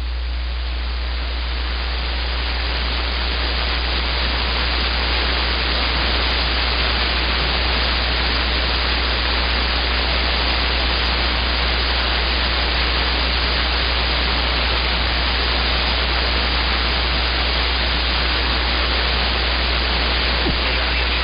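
CB radio receiver hiss: steady static on an open channel between transmissions, over a steady low hum, getting a little louder over the first few seconds.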